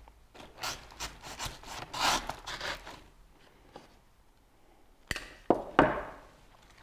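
Scratchy rubbing and rustling as artificial flower stems are handled and pushed into dry floral foam, followed by a few sharp clicks about five to six seconds in.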